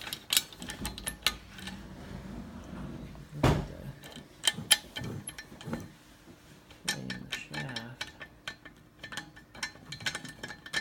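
Metallic clicking and rattling from the wastegate flap of a removed BMW N54 turbocharger as it is worked by hand, with one louder knock partway through. The loose flap is the kind that does not always seat, the cause of intermittent low boost.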